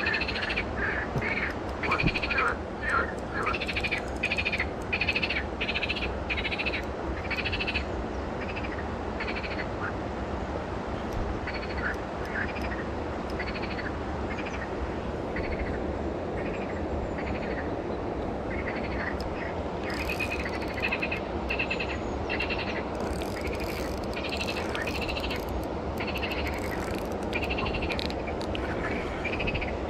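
Frogs croaking in runs of quick, repeated calls, busiest at first and again in the last third, over a steady low background rush.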